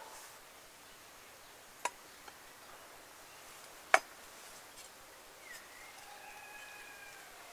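Large kitchen knife knocking on a wooden cutting board while slicing vegetables: a few sharp separate knocks, the loudest about four seconds in, over a quiet steady background.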